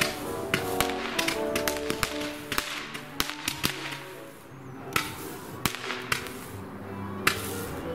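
Consumer fireworks going off in a rapid, irregular run of sharp cracks and pops, a couple a second, over background music.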